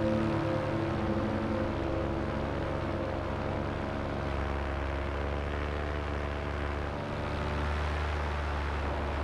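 Ambient background music with slowly changing held chords and a low bass drone.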